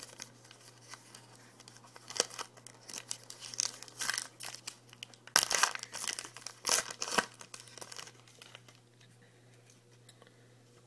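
Trading card pack wrapper being torn open and crinkled by hand, a run of sharp crackles that dies down about eight seconds in.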